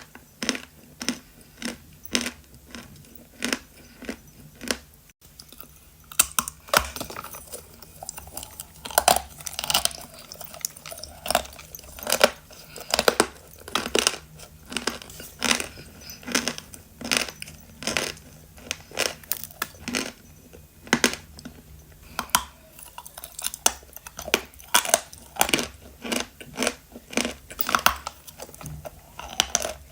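A person chewing pieces of natural chalk close to the microphone, with a rapid run of dull, crackling crunches, about two or three a second.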